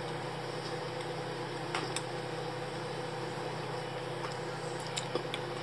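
Steady low mechanical hum from a running kitchen appliance, with a few faint clicks.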